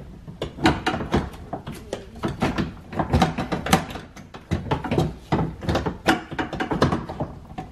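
Irregular clicks and knocks of a power window regulator assembly and its motor being worked into place against the metal inner door panel of a Cadillac STS, plastic and metal parts bumping and catching.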